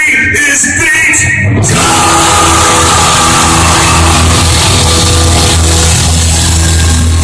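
Rock band playing live, loud. The music is choppy for the first second and a half, then the full band comes in with a steady, heavy bass.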